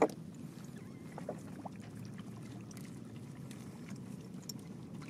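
Small fishing boat on a river: one sharp knock at the start, then a faint, steady low rumble of water and boat noise with a few small scattered sounds.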